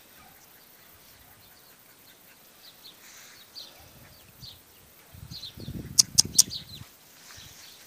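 Faint, short, high chirps from small birds. About five seconds in, a low rustling rumble with three sharp knocks in quick succession, the loudest sound.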